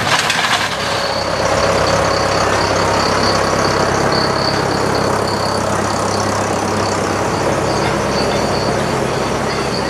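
Tractor engine running steadily at low speed as a tractor passes close by, a steady low hum.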